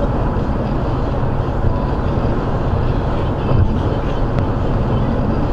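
Steady road noise inside a car cabin at highway speed: tyres hissing on a wet road together with wind and engine noise.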